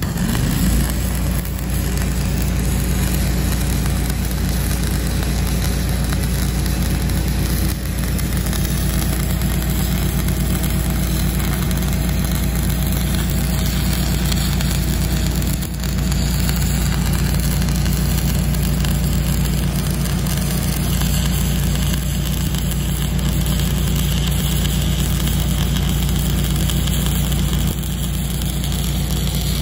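Stick-welding arc struck on steel plate and then burning steadily as the rod is run along the weld, over a constant low machine hum.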